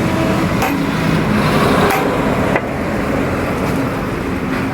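Road traffic: vehicle engines running steadily, with a few sharp knocks.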